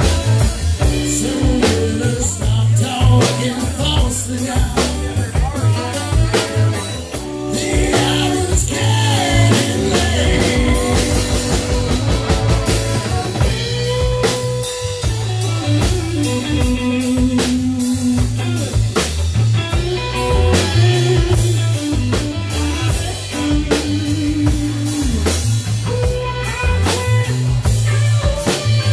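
Live blues-rock band playing: drum kit and electric bass keep a steady groove under a lead line of long held notes that bend up and down in pitch.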